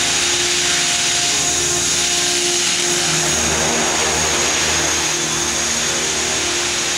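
Align T-Rex radio-controlled helicopter flying: a steady whir of the spinning rotor blades, with a lower hum and a high whine over it.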